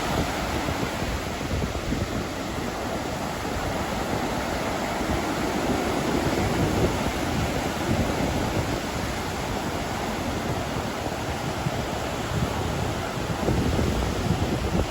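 Atlantic Ocean surf: waves washing in as a steady rushing noise with a deep rumble underneath, swelling a little near the end.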